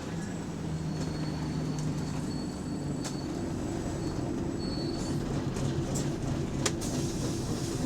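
Bus engine running with a steady low drone, heard from inside the passenger saloon, with a few sharp clicks and rattles in the second half.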